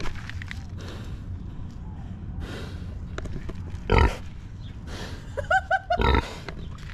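A large domestic pig grunting close to the camera, with two loud grunts: one about four seconds in and another about six seconds in.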